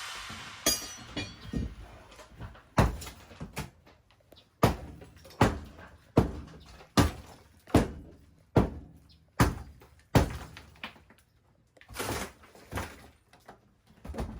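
Repeated heavy knocks on a wooden floor being torn up: scattered at first, then a steady run of blows about one every 0.8 seconds, and a few more near the end.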